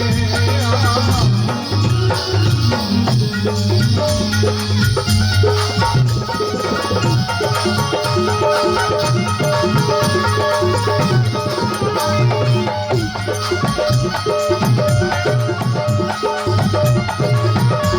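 Rajasthani devotional bhajan music without singing: a hand-drum beat with rattling percussion under a melodic instrumental line.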